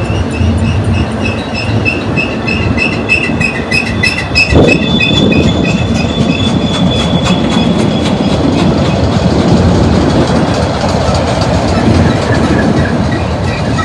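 Freight cars of a Union Pacific manifest train rolling past close by, mostly autoracks: a steady loud rumble of wheels on rail. Over it runs a high-pitched wheel squeal that pulses a few times a second, with a steady squeal from about four to eight seconds in. A single knock comes about four and a half seconds in.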